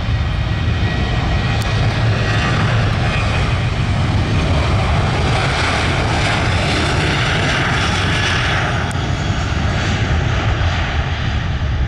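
Ryanair Boeing 737-800's jet engines running at high power as the airliner moves along the runway: a loud, steady rumble with a brighter hiss that swells in the middle of the stretch and eases near the end.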